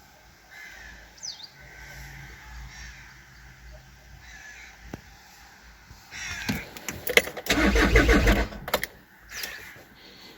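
VW engine turned over by the starter for about three seconds, starting about six seconds in, without catching: the cranks-but-no-start fault, logged with crankshaft/camshaft position correlation codes.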